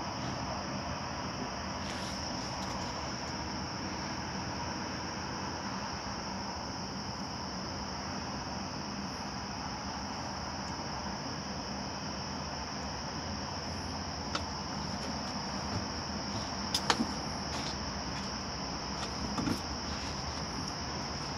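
A steady, high-pitched chorus of crickets, with a few sharp clicks past the middle.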